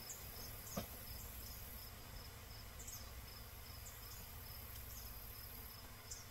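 Faint outdoor ambience: an insect chirping steadily in a high, even pulse about three times a second, with a few short high bird chirps over it.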